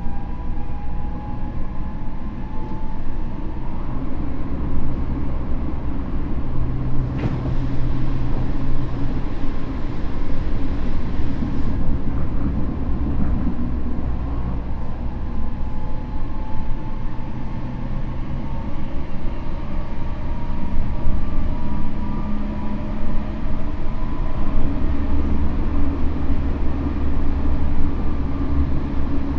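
Tokyo Metro N05 series electric train with Hitachi IGBT VVVF control, heard from inside the car running at speed: steady wheel-and-rail rumble with a faint traction-motor whine that drifts slowly in pitch. The owner suspects this car's motors were swapped for 15000 series units, which would explain its prominent high-pitched tone at speed.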